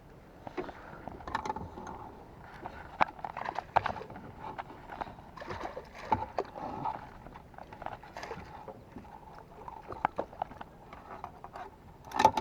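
Irregular knocks and clicks of handling gear on a small boat, with light water sloshing; a louder cluster of knocks comes near the end.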